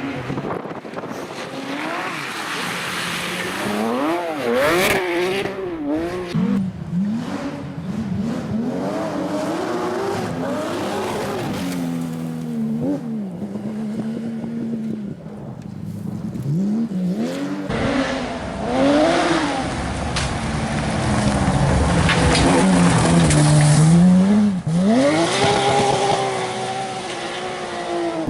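Racing car engines at full load on track, the engine note repeatedly climbing and then dropping sharply as the cars accelerate, shift and brake.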